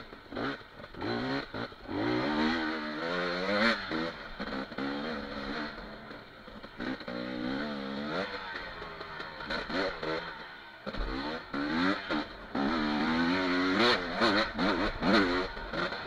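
Dirt bike engine revving hard over and over, its pitch climbing as the throttle opens and falling back between, while the bike is ridden over rough trail. Sharp knocks from the bumpy ground come through now and then.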